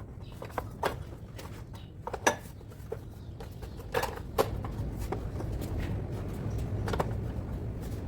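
Metal tools and parts clinking and knocking as they are handled while a ride-on mower is reassembled, a series of separate sharp clicks over a low steady rumble.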